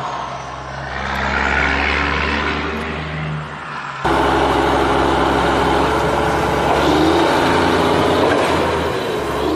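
Vehicle engine sound running steadily, dubbed over the toy-truck footage. About four seconds in it switches abruptly to a louder, brighter engine sound.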